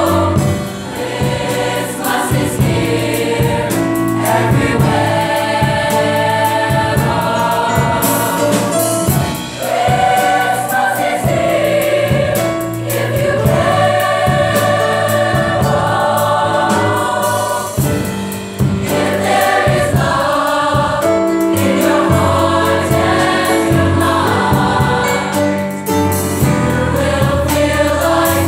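A large mixed youth choir singing unaccompanied in several-part harmony, with sustained held notes.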